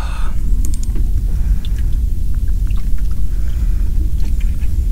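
Steady low rumble of wind buffeting the microphone, with a few faint light clicks.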